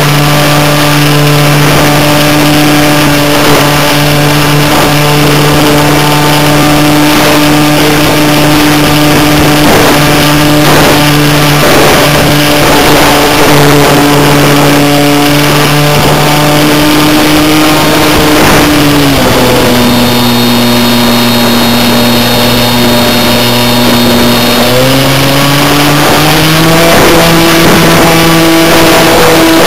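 Skybug RC model plane's motor and propeller heard up close from under the wing, running at a steady pitch in flight. The pitch drops about nineteen seconds in as the throttle is eased back, then climbs again a few seconds later as power is added.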